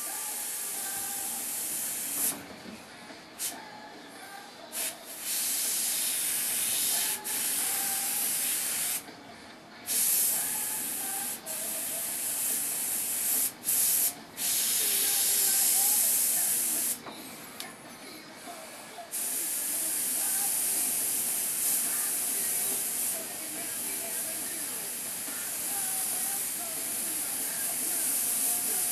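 An airbrush hisses as it sprays paint. The air starts and stops many times in short bursts, then runs in longer, steadier stretches in the second half.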